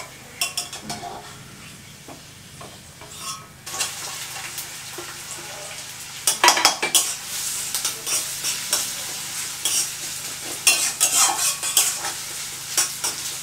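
Sliced onions frying in oil in a steel kadai, sizzling, while a metal spatula stirs them and scrapes and clinks against the pan. The sizzling grows louder about four seconds in.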